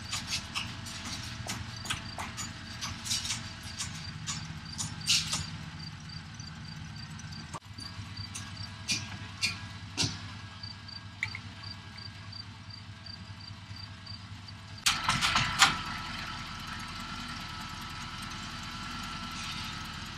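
Boom truck engine running steadily under sharp knocks of hammering on wooden roof framing, with a cluster of louder blows about three-quarters of the way through. A regular high chirp, about three a second, runs through the first part.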